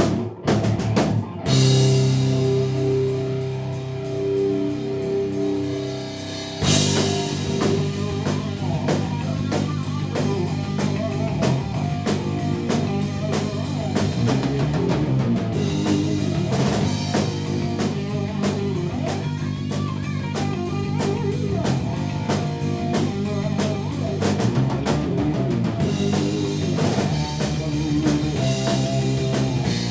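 Rock band playing live at rehearsal. A held guitar chord rings out at first, then the drum kit and the rest of the band come in about six and a half seconds in and play a steady rock groove.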